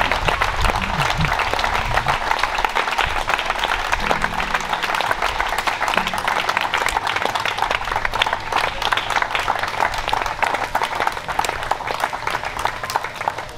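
Audience applauding, dense clapping from many hands that slowly dies down toward the end.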